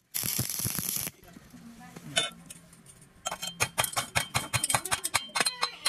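Stick-welding arc crackling for about a second and then cutting off. After a pause, a pointed steel tool taps the fresh weld bead in a fast, even series of sharp metallic clinks, about five a second, chipping off the slag.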